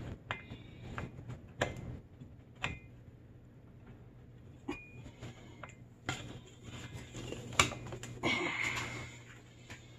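Hand grease gun being opened up for reloading: scattered metallic clicks and knocks as the barrel and plunger rod are handled, with a short scrape about eight seconds in.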